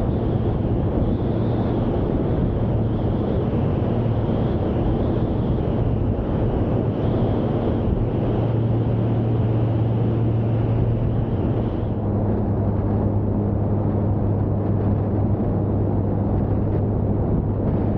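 Single piston engine of a light homebuilt plane running steadily in flight, a low drone with wind rush over the microphone. About twelve seconds in, the hiss drops away and the drone settles a little lower and steadier.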